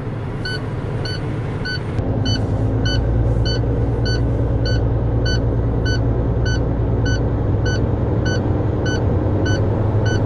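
Heavy truck's diesel engine raised from idle to a steady fast idle of about 1200 RPM about two seconds in, to drive the air compressor. Over it the low-air-pressure warning alarm beeps about twice a second, because the brake air is still below 60 PSI.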